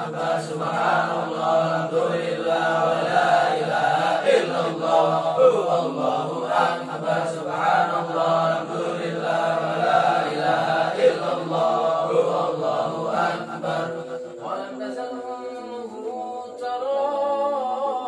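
A group of men chanting Islamic dzikir together in unison. Near the end the massed chanting thins and fewer voices carry the line.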